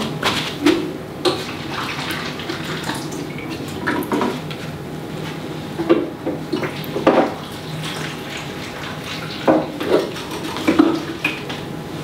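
Light knocks and clinks of plant pots being handled and set down on shelves, about a dozen scattered through, over a low steady hum.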